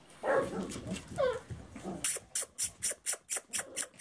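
Miniature American Shepherd puppies at play: two short cries falling in pitch in the first second and a half, then a quick, even run of short hissy sounds, about six a second, from about halfway through.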